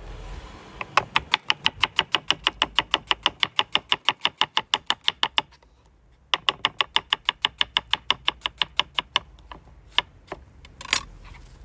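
Fast, evenly spaced clicks or taps in two long runs with a short pause between, then a few scattered clicks.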